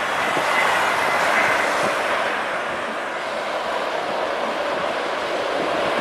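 Steady roar of a jet airliner's engines, mixed with strong wind buffeting the microphone, with a faint whistle early on.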